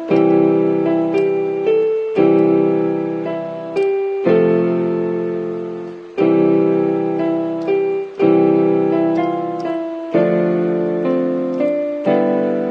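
Piano music: a slow tune with a chord struck about every two seconds and single notes in between, each fading away.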